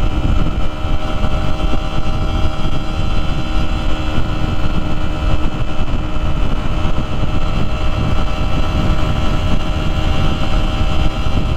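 Honda XR150L's single-cylinder 150cc engine running at steady high revs, its pitch holding even, under a heavy rush of wind over the microphone.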